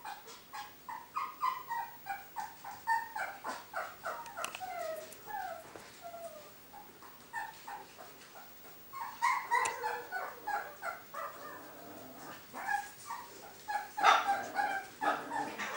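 A puppy yipping and whimpering in quick, short, high calls, several a second, some sliding down in pitch; they thin out for a few seconds mid-way and come thick again toward the end.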